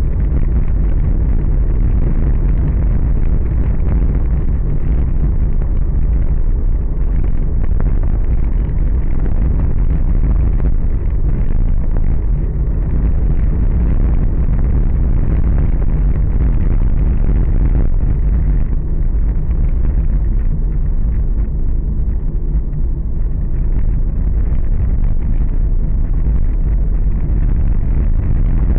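Car driving at steady speed, heard from inside the cabin: a loud, steady low rumble of road and engine noise.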